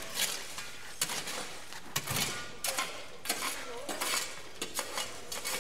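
Broken masonry, glass and debris clinking and clattering, with a string of irregular sharp knocks and scraping sounds.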